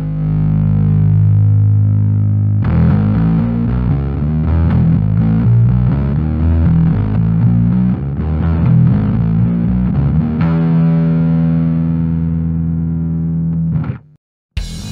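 Bass played through a Fender Blender fuzz pedal, heavily distorted. A held note gives way to a busier riff, then sustained notes that cut off sharply near the end, with a brief gap before playing starts again.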